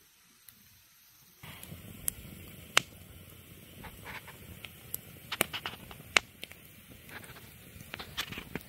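Wood campfire crackling, with sharp irregular pops over a steady rush of burning. It starts about a second and a half in, after a near-silent moment.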